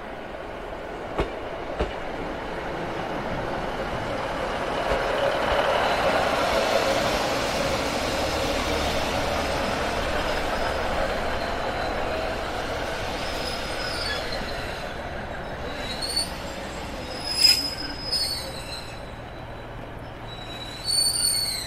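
Class 156 Sprinter diesel multiple unit running past along a station platform. Its rumble swells about five seconds in, then fades, and is followed by a few high-pitched wheel squeals as the train runs on and slows.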